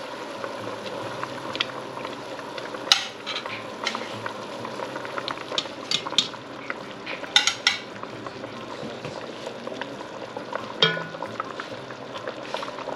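Rabbit braising liquid bubbling at a fast simmer in an enamelled Dutch oven, with metal tongs clicking against the pot now and then as pieces of browned rabbit are laid back into the sauce. The bubbling is a rolling boil, a little too hot.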